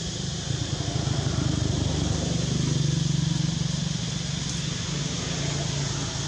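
Low engine hum of a motor vehicle, growing louder about a second in and easing after about three and a half seconds, over a steady high hiss.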